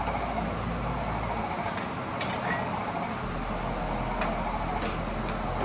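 Steady kitchen background noise with two or three short clinks, as of a utensil knocking on a pot during cooking.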